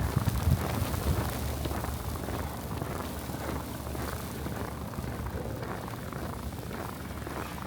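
Boots crunching through fresh snow, with a steady low rumble of wind underneath and a couple of heavier thumps at the very start.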